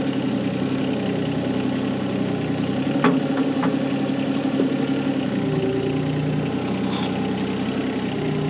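Volvo EC20 mini excavator's diesel engine running steadily, heard from the operator's seat as the machine moves and swings its arm. The engine note shifts a little about halfway through, and there are two light clicks about three seconds in.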